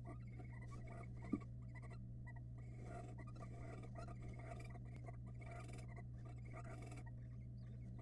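Barn owls shifting on the nest-box floor: faint, irregular scratching and rustling of feet and feathers on the nest debris, with a single sharp tap about a second and a half in, over a steady low hum.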